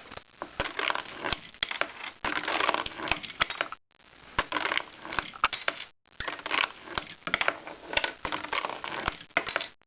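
Irregular crackling and rustling with many sharp clicks, breaking off abruptly a few times.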